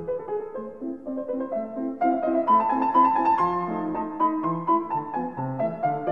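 Background piano music playing a steady flowing melody over a bass line.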